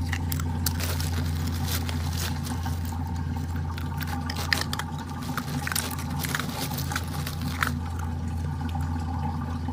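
Crushed ice crackling and clicking as an otter pup paws and noses through it, over a steady low hum.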